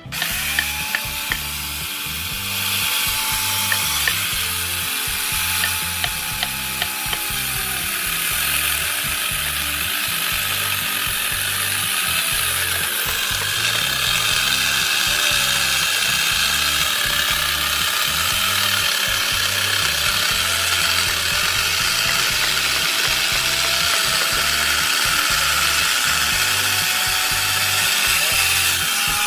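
A handheld power tool cutting into Ficus wood: a steady grinding noise with a motor whine that sags and recovers in pitch as the tool bites and eases off.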